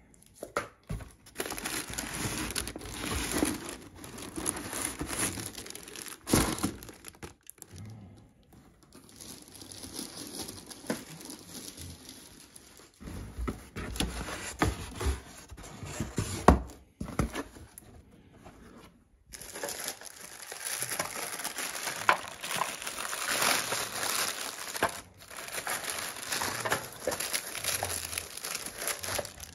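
Packaging being crumpled and torn by hand, in long rustling stretches broken by short pauses, with a few sharp cracks.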